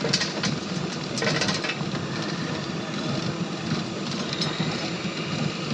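Radio-controlled scale model truck or construction machine running with a steady engine-like hum, with a short burst of clicking about a second in.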